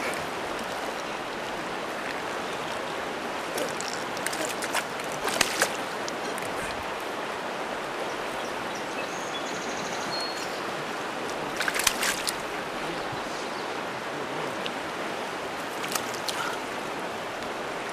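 Steady rush of moving water around a small boat, with a few brief knocks scattered through it.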